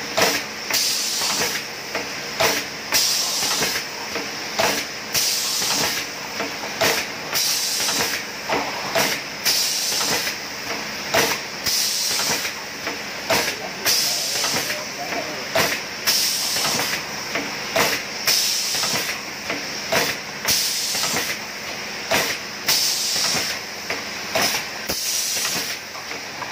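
Pad printing machine cycling: repeated sharp hisses of air from its cylinders with clacks of the moving pad, about one or two a second, over a steady hiss.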